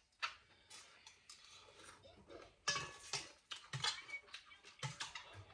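Kitchen utensils clinking and knocking against bowls and pots in irregular, separate strikes, some with a short metallic ring; the loudest come a little under three seconds in and near four seconds.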